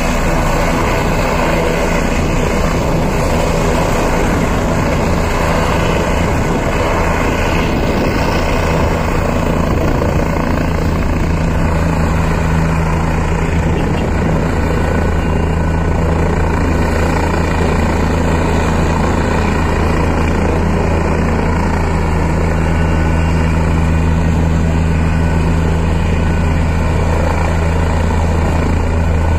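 Turbine helicopter running on the ground with its rotors turning: a steady, loud drone of rotor and engine with an even low hum and a constant whine, not changing in pitch.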